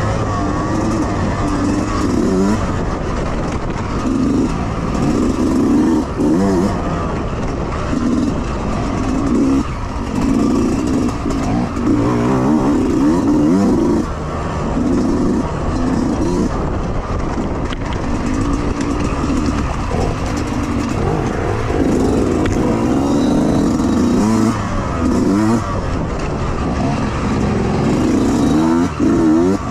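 Yamaha YZ125X two-stroke dirt bike engine, heard close up from the rider, revving up and falling back again and again as the throttle is opened and closed through tight trail sections.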